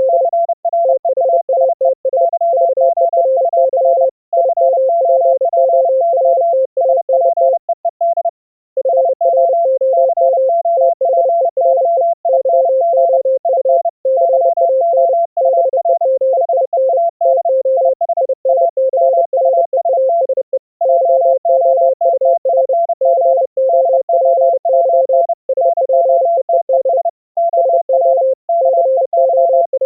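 Morse code (CW) tones at two pitches, a lower and a slightly higher one, keyed on and off in fast dots and dashes. These are two operators sending at the same time over a full-duplex audio-over-IP link.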